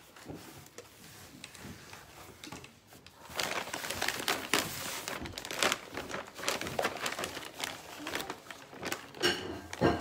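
Water shaken and squeezed from an upturned plastic bottle onto a seedling tray of potting mix: uneven spattering and hissing, with crinkling of the bottle's plastic. It grows louder about three seconds in.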